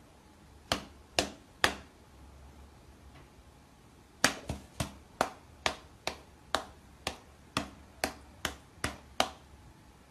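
A person's hand and a cat's front paws patting against each other: three sharp slap-like taps, then after a pause of about two seconds a run of about a dozen more at roughly two a second.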